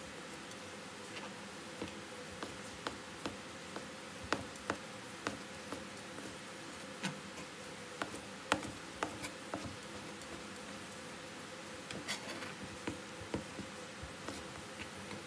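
Kitchen knife chopping boiled pig heart into small cubes on a cutting board: irregular sharp knocks of the blade on the board, about two a second, with a short pause about ten seconds in. A steady low hum runs underneath.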